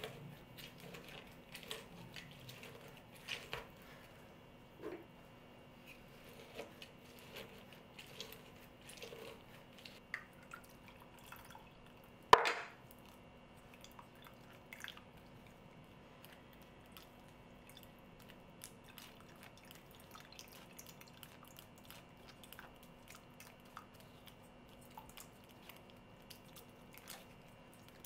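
Lemon halves twisted on a hand citrus reamer with faint squishing and small clicks, then one sharp knock about twelve seconds in. After that comes faint dripping of lemon juice through a small mesh strainer into the pot, with light scrapes of a silicone spatula pressing the pulp.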